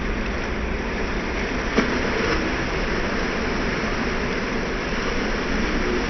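Ocean waves breaking and washing over a rock jetty, a steady rushing wash of surf. A short sharp click about two seconds in.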